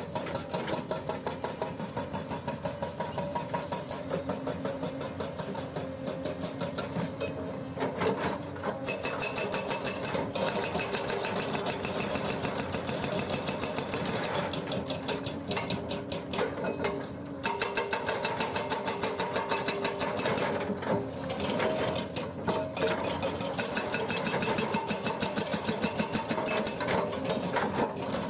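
Excavator-mounted hydraulic breaker hammering in a rapid, even stream of blows, with a few brief pauses, over the steady drone of the Hyundai 210LC-7 excavator's diesel engine working under load.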